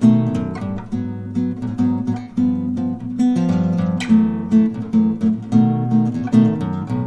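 Background music: acoustic guitar playing a steady rhythm of repeated chords.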